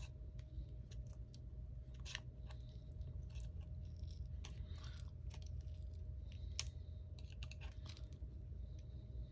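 Plastic pry tool working under an iPhone 6s Plus battery, with faint, irregular crackles and scrapes as the battery is levered off its adhesive.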